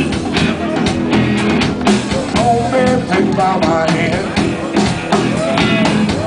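Live blues-rock band playing: electric guitars over a drum kit, with a lead line whose notes glide up and down.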